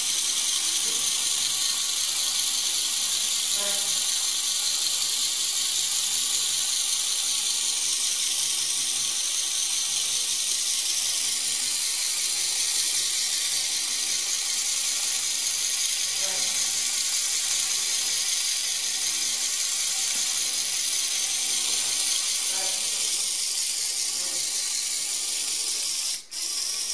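LEGO Power Functions M motor whirring steadily as it drives the gear train of a LEGO Technic two-legged walking robot, a high, even whir with faint scattered clicks from the plastic mechanism. The sound briefly drops out near the end.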